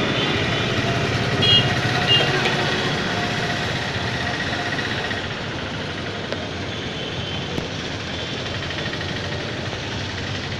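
Steady rumble of motor traffic with two short, high-pitched chirps about one and a half and two seconds in.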